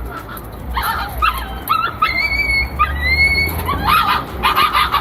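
A dog whining and yipping: a string of short high-pitched whines that rise and fall, with two longer held whines about halfway through.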